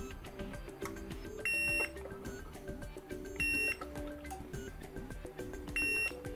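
Fluke digital multimeter's continuity beeper sounding three short, steady high beeps about two seconds apart, each time the probe touches connected charger contacts, showing continuity between them. Background music plays underneath.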